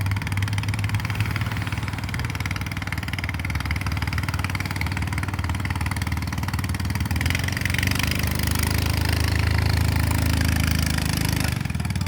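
A small engine running steadily at low revs, growing louder about seven seconds in.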